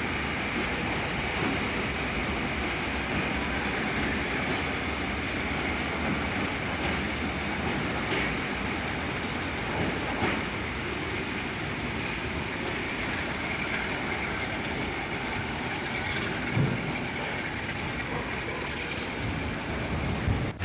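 Freight train of box vans rolling slowly past, with a thin steady wheel squeal and a few clacks over the rail joints.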